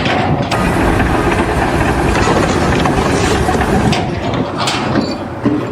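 A machine running: a steady, dense mechanical noise.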